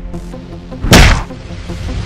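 Action background music with an even, pulsing beat. About a second in comes a single loud hit with a whoosh, a dubbed fight blow.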